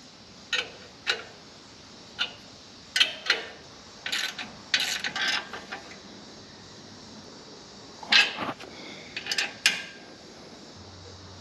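Steel wrench clicking and clinking against the U-bolt nuts and the steel step tube as the nuts are snugged down, in scattered short metallic clinks with a pause of a couple of seconds midway.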